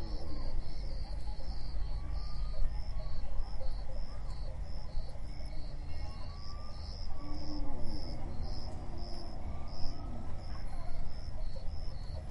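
African savanna ambience: insects chirping in a steady, evenly pulsing high rhythm over a constant low rumble, with a few faint gliding calls in the background.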